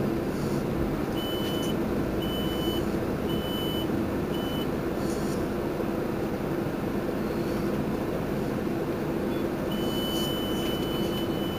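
Mercedes-Benz Intouro bus's diesel engine idling steadily while it stands at a stop. Over it come four short high electronic beeps about a second apart, starting about a second in, and near the end a continuous high beep comes on.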